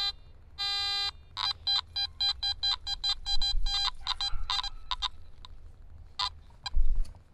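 Garrett AT Max metal detector sounding off on a target: one longer tone, then a run of short beeps about three a second, then a few scattered beeps, with a low thump near the end. The signal is a steady target ID of 80, the mark of a silver coin, here a Mercury dime.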